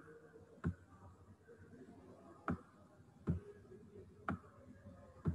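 A computer mouse clicking about five times at uneven intervals, over faint background hiss.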